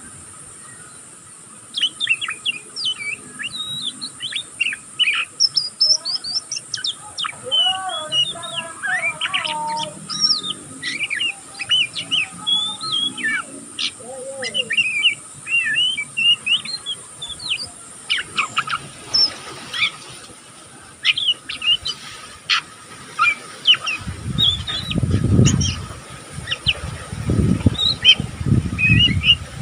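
Young oriental magpie-robin (kacer) twittering non-stop in rapid short chirps and whistles, starting about two seconds in. This is the chattering 'ngeriwik' practice song of a juvenile still learning to sing. A few low thumps sound near the end.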